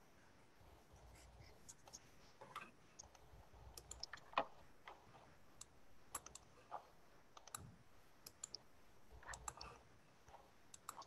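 Faint, irregular clicks of a computer mouse and keyboard being worked, with a louder click about four seconds in, over near silence.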